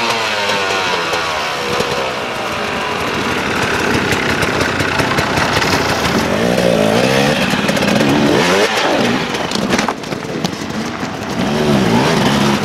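Enduro dirt bike engines revving hard in repeated rising and falling bursts, several bikes at once, as riders pick their way over large rocks.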